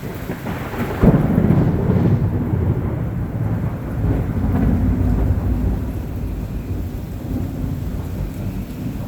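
Thunder from a lightning strike: a sudden loud crack about a second in, then a long low rolling rumble, with heavy rain falling.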